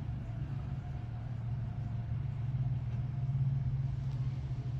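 A steady low hum, like an engine idling, that swells slightly about three seconds in.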